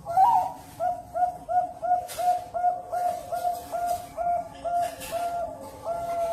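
Zebra dove (perkutut) cooing: an opening note, then a fast run of short, evenly spaced coos, about three a second, ending on a longer held note.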